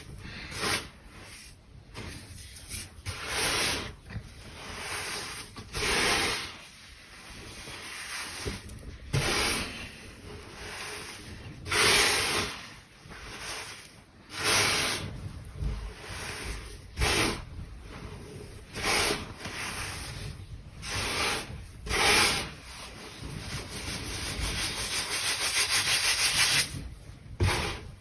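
Crunchy baking soda being crushed and rubbed in repeated strokes, one every second or two, with a longer continuous rub near the end.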